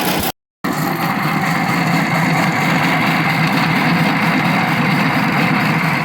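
Electric air compressor running steadily as it pumps up its tank, with a loud metal grinding noise from the pump and motor. The sound drops out completely for a moment about half a second in.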